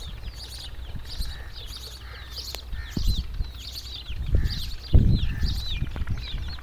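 Chicks peeping continuously: a stream of short, high, downward-sliding peeps. Low thumps and rumbles come in about three, four and five seconds in.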